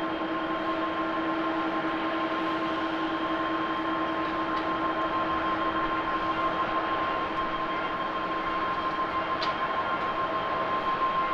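Airbus A350's Rolls-Royce Trent XWB jet engines running as the airliner rolls out along the runway after touchdown: a steady jet rush with several constant whining tones, slowly growing louder.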